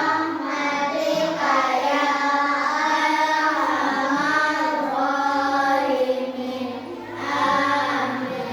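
A class of young children chanting together in unison, in a sing-song melody with long held notes and a brief pause about seven seconds in.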